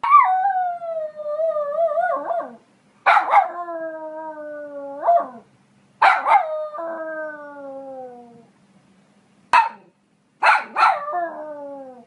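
Poodle barking and howling: sharp yips, each run straight into a long, drawn-out howl that falls in pitch, four times over, with one lone bark near the end.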